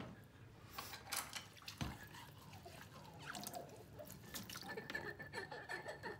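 Faint splashing and dripping of water as dishes are hand-washed and scrubbed in a plastic basin, with a few light clicks of dishware.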